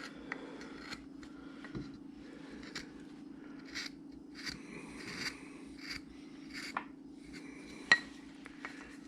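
No. 3 shallow carving gouge paring wood in short, irregular strokes, shaping a carved face into a wedge. A faint steady hum runs underneath, and there is one sharp click about eight seconds in.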